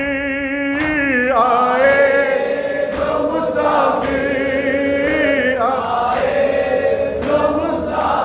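A man chanting a noha, a Shia mourning lament in Urdu, in long drawn-out notes that waver and glide in pitch.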